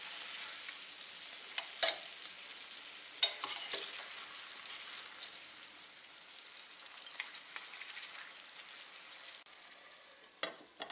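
Tandoori-marinated chicken legs sizzling gently on low heat in a stainless steel frying pan, cooking in the water they have released. Metal tongs click against the pan a few times in the first few seconds as the pieces are turned, and near the end a lid clanks down onto the pan.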